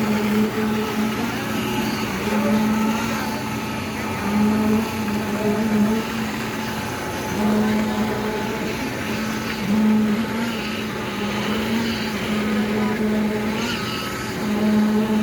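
Concrete pump truck running under load: a steady engine hum that swells briefly every two seconds or so, with the pumping strokes.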